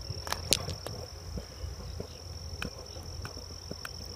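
An insect trilling steadily at one high pitch, with scattered sharp clicks and taps from hands handling a dragon fruit stem close to the microphone; the loudest clicks come about half a second in.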